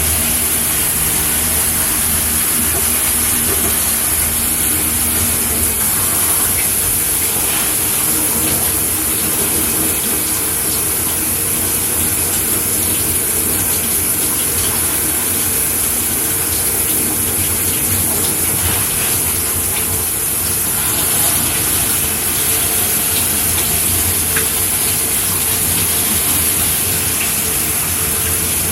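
Shower running: a steady hiss of water spraying and splashing. A low hum sits underneath at first and fades out about six seconds in.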